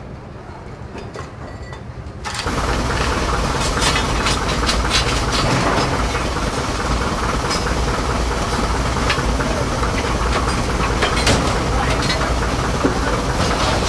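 Steam locomotive cab noise starting suddenly about two seconds in: a steady loud rumble and hiss from the locomotive's fire, with repeated metal scrapes and clanks of a long fire iron against the grate and firebox door as the fireman rakes clinker out of the fire.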